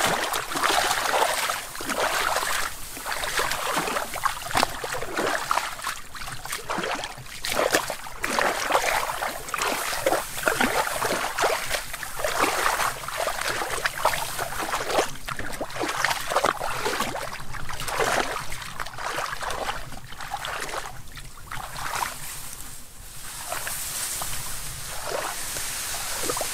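Wading footsteps squelching and splashing through shallow mud and water, irregular, about one or two steps a second. Near the end the splashes give way to a softer, steady rustling.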